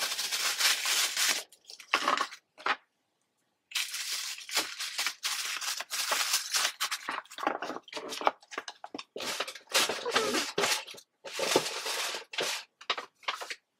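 Paper packaging and a cardboard gift box being handled: crinkling and rustling in irregular bursts, with a short pause about three seconds in.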